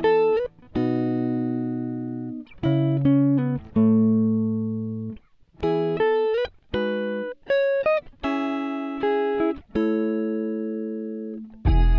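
Background music: plucked guitar notes and chords in a slow, spaced-out pattern, each one ringing and fading before the next. A louder, fuller passage with bass comes in at the very end.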